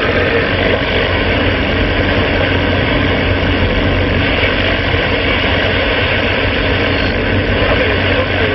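Steady drone of a vehicle engine with an even hiss over it, holding level without change.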